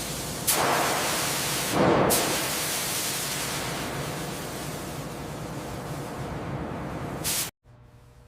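Steady hiss of a compressed-air spray that swells twice near the start, holds even, then cuts off abruptly about seven and a half seconds in.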